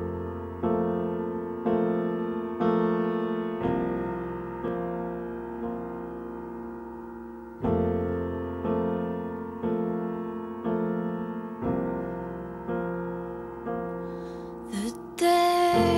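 Soft background piano music, slow chords struck about once a second, each dying away. Near the end there is a brief rushing sound, and then a louder passage begins.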